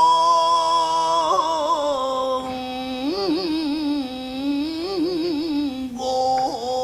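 Rōkyoku (naniwabushi) singing by an elderly male narrator: one long, drawn-out sung phrase whose held notes waver in ornamental trills. A new phrase begins on a higher note about six seconds in.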